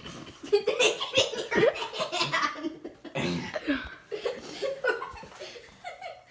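People laughing in fits and bursts, with a few words mixed in.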